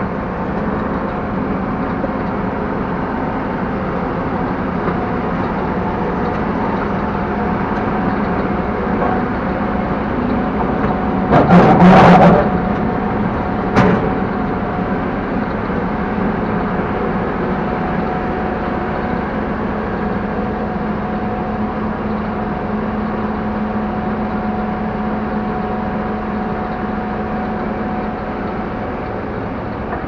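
Fortschritt E-516B combine harvester's engine running steadily with a steady hum while the machine moves. About twelve seconds in there is a short, loud rattling clatter, and a single knock follows about two seconds later.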